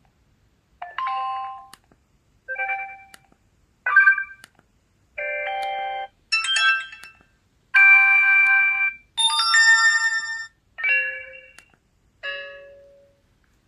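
TTfone TT970 mobile phone playing its preset alert tones one after another through its speaker: about nine short electronic chimes, each a different pitched jingle, with brief pauses between them.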